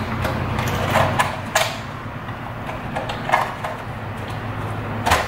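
Polycarbonate RC car body being handled and pressed onto a buggy chassis: several light plastic clicks and knocks, the sharpest near the end, over a steady low hum.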